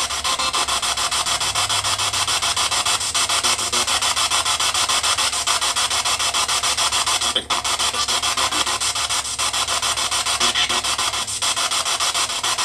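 Spirit box, a radio rapidly sweeping through stations, putting out a steady stream of rapidly chopped static and hiss. The static drops out briefly about halfway through.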